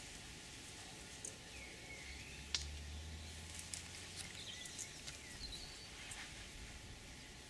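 Quiet lakeside ambience: scattered short bird chirps over a low steady rumble, with a few sharp clicks, the loudest about two and a half seconds in.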